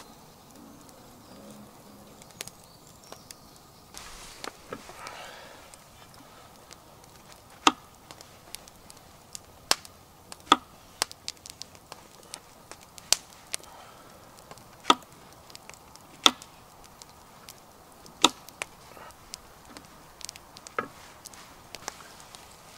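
Raw mushrooms being cut with a knife held in the hand: a sharp click every one to two seconds, starting about a third of the way in.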